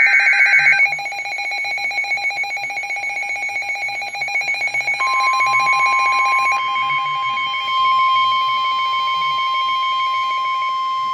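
Emergency Alert System alert tones announcing a special marine warning. A brief loud burst of warbling data tones is followed by a rapidly pulsing electronic alarm tone. About five seconds in, a steady single tone joins and holds on.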